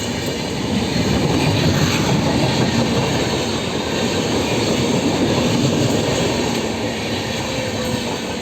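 Express passenger train running through the station at speed, its coaches and wheels rumbling along the track. Loud and steady, easing a little near the end.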